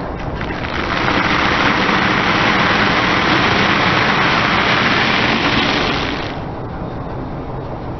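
Dried vermicelli noodles being crushed under a slowly rolling car tyre: a dense crackling crunch that builds about a second in and fades out around six seconds in. The low rumble of the car's engine idling runs underneath.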